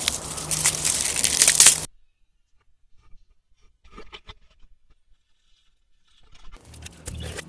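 Dry dead leaves on a tree branch crackling and rustling loudly as a hand grabs and pulls at them, with sharp crunchy clicks. This cuts off suddenly about two seconds in, giving way to near silence with a few faint clicks and then a soft rustle of plastic packaging being handled near the end.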